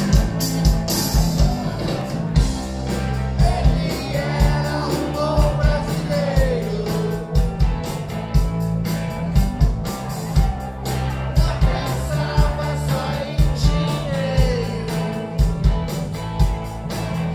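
Live rock band playing: distorted electric guitars and bass over a drum kit keeping a steady beat. A lead singer's vocal lines come in about four seconds in and again near the end.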